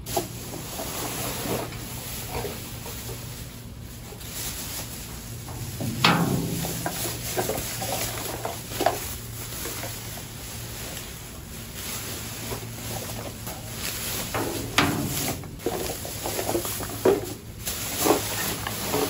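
Clear plastic garbage bags rustling and crinkling as they are lifted and shifted about inside a dumpster, with irregular knocks and thumps; the loudest comes about six seconds in, and a cluster follows near the end.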